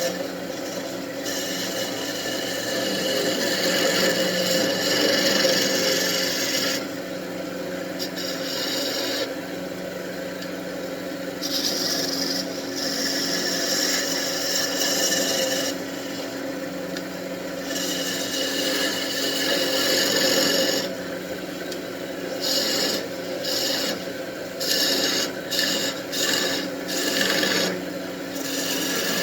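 Wood lathe running with a steady hum while a turning tool cuts the spinning wooden wand blank in repeated passes, with a scraping hiss that starts and stops, the passes getting short and quick near the end.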